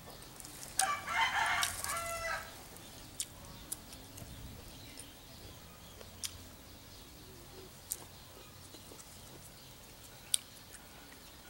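A rooster crows once, about a second in, for a second and a half. Afterwards a few faint clicks of a metal spoon against a coconut shell.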